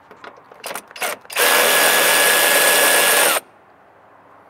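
Kobalt 24-volt cordless ratchet running for about two seconds, spinning out a 10 mm grille bolt, with a steady whine that dips as the motor stops. A few light clicks come just before, as the socket is set on the bolt.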